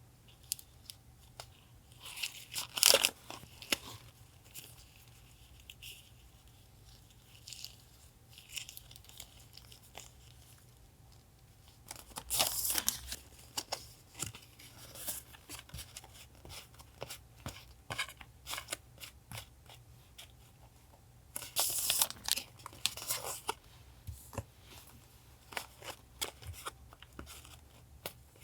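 Paper being handled for collage journaling: rustling, crinkling and tearing, with three louder spells of tearing about two, twelve and twenty-two seconds in, among many small taps and clicks. A refrigerator hums low and steady underneath.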